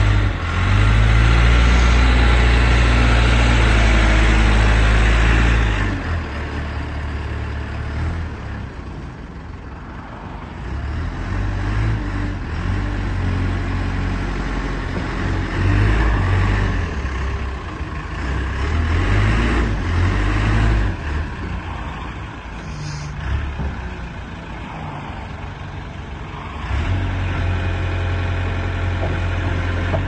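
Diesel engine of a JCB 3CX backhoe loader running as the machine drives and manoeuvres, with its revs going up and down. It is loudest for the first six seconds, drops back, surges several times, eases off, then comes up again and holds steady near the end.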